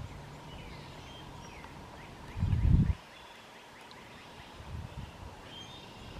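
Small birds chirping faintly with short downward whistles in marsh ambience. A brief low rumble comes about two and a half seconds in.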